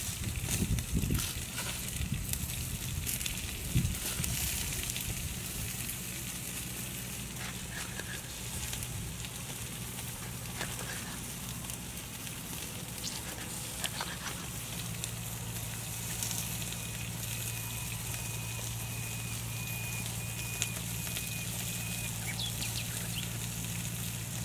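Crackling and sizzling of a cooking fire, with scattered small clicks and knocks from ingredients being handled. A low steady hum runs underneath, and a thin high tone is held for several seconds in the second half.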